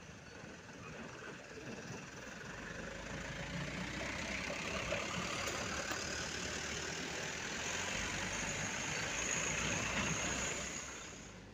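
Mitsubishi Fuso light box truck's diesel engine running as the truck crawls slowly past at close range. It grows louder over the first few seconds and falls away near the end.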